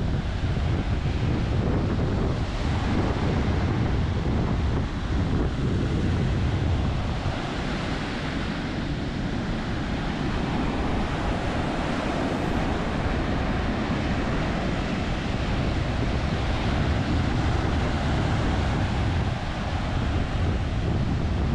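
Ocean surf breaking close by and foam washing up the sand, a continuous wash with slow swells as each wave comes in. Wind buffets the microphone with a low rumble.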